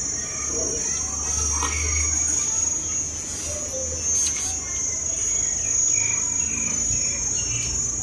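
Insects droning without a break at a high, even pitch, with short scattered bird chirps.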